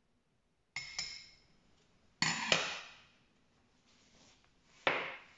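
Metal spoon clinking against a ceramic ramekin while scooping flour: a few sharp clinks with a brief ring, about a second in, twice just after two seconds, and again near the end.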